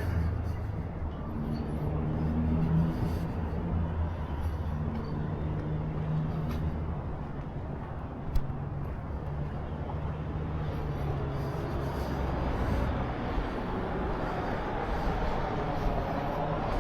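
Motor vehicle engines running at low speed, a steady low hum, with one short sharp click about eight seconds in.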